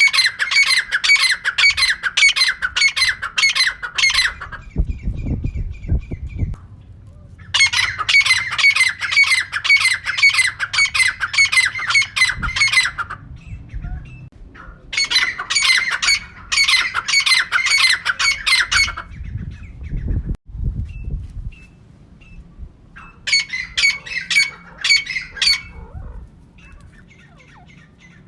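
Female francolin (teetar) calling: bouts of several seconds of quickly repeated harsh, squawking notes, broken by short pauses.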